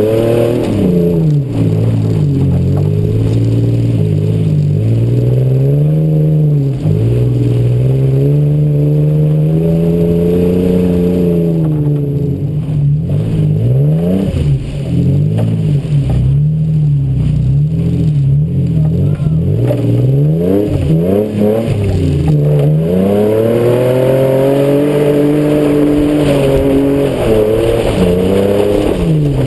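2004 Suzuki Grand Vitara 2.5-litre V6 running through a Magnaflow performance muffler, its revs rising and falling again and again.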